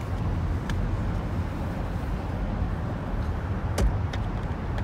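Light clicks and a knock with a dull thump from a Graco convertible car seat being handled and settled, over a steady low rumble.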